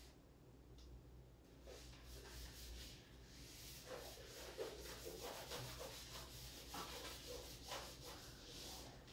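Faint scratching and rubbing of a pen writing in short, irregular strokes, starting about a second and a half in, over a steady low hum.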